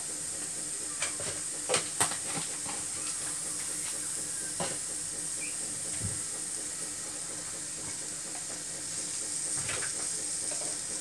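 A stockpot of broth boiling on a gas hob, with a steady hissing bubble. A few sharp clicks come in the first couple of seconds.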